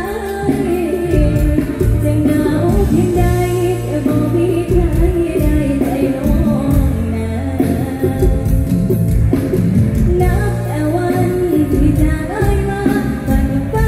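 A young woman singing a mor lam song into a microphone, with a live electric band of guitars, bass and drums behind her.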